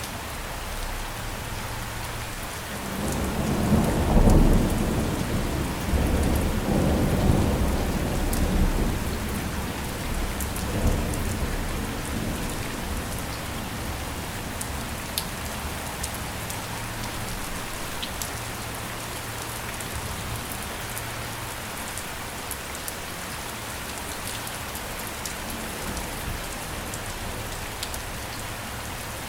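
Steady rain falling, with a low roll of thunder that swells about three seconds in and dies away by about eleven seconds.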